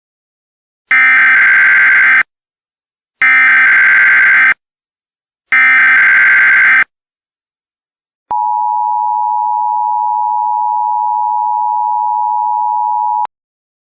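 Emergency Alert System signal: three short screeching data bursts of the digital SAME header, then a steady two-tone attention signal lasting about five seconds that cuts off suddenly.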